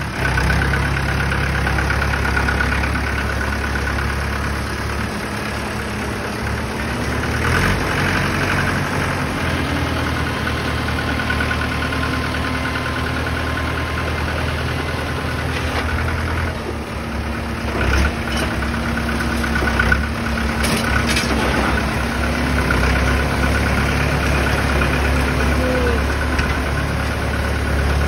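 Diesel tractor engines running under load while one tractor tows another out of deep mud. The engine note drops in pitch about a quarter of the way in and comes back up about three-quarters through, with a few sharp knocks past the middle.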